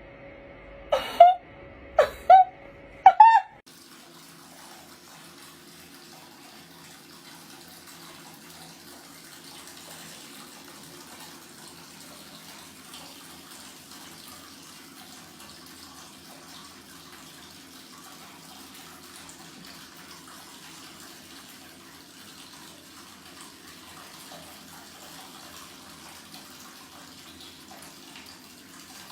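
Three short, loud calls, each rising and falling in pitch, come about a second apart. Then a steady rush of running water, like a tap, carries on.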